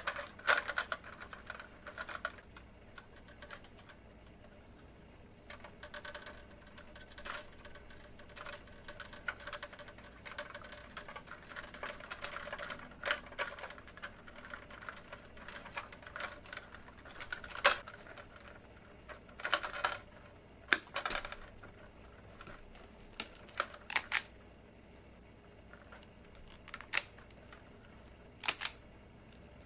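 Irregular small clicks and taps of wires and push-in wire connectors being handled and fitted in a fluorescent shop-light fixture during a ballast swap. The sharpest clicks come in the second half.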